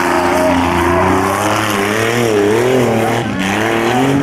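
Lifted mud truck's engine revving hard as it tears through a dirt track, its pitch surging up and down every half second or so, with a brief drop about three seconds in.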